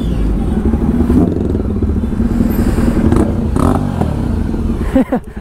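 KTM Duke single-cylinder motorcycle engine running at low speed as the bike rolls in and stops, cut off about five seconds in.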